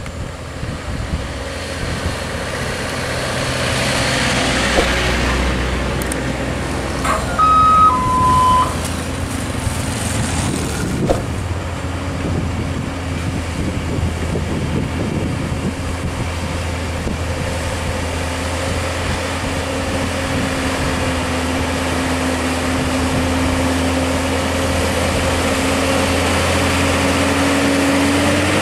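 A heavily loaded Hino dump truck's diesel engine labouring up a steep grade, its steady note creeping upward in pitch and growing louder as it approaches. Earlier a smaller truck passes, and a horn gives a short two-note beep falling in pitch, about seven to eight seconds in.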